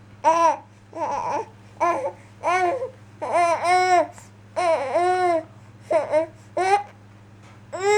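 Baby babbling in a string of about ten short, high-pitched vocal sounds, each rising and falling in pitch. A steady low hum runs underneath.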